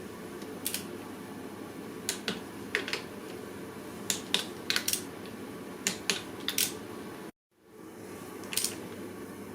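Sharp clicks of a torque wrench, often in close pairs, as the clutch pressure-plate spring bolts are tightened crisscross to 12 N·m. The sound cuts out briefly about three quarters of the way through.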